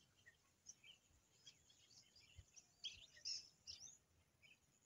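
Faint scattered bird chirps, short high calls and a few quick glides, busiest around the middle, over near silence.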